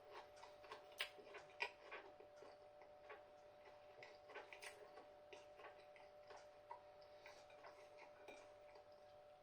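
Faint close-up chewing of a breaded chicken popster: irregular small crunches and wet mouth clicks.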